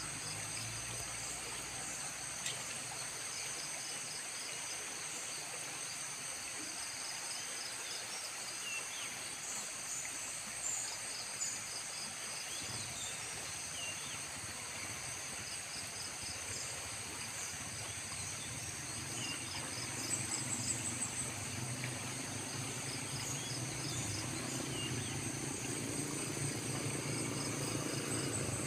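Steady rush of a muddy, swollen river, with insects chirping and buzzing in high, steady tones. Over roughly the last ten seconds an engine hum builds and grows louder as a vehicle approaches.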